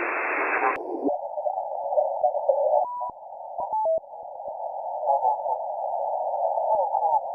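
Shortwave radio receiver hiss and static that narrows abruptly to a thin, muffled band about a second in, with brief steady whistles of carriers around three to four seconds in.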